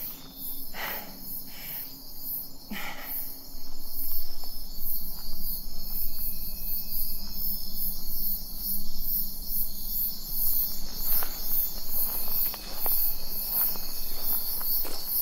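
Insects chirping in a steady, rhythmic pulse in dry woodland, growing louder about four seconds in. Near the end come a few light footsteps on a dirt trail.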